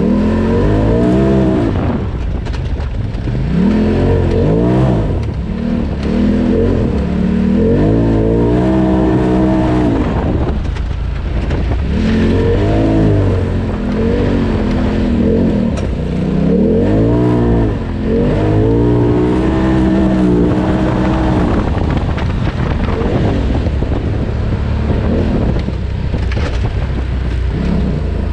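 Polaris RZR Turbo side-by-side's turbocharged engine being driven hard in low gear, revving up and dropping back over and over as it accelerates and slows along a twisting trail.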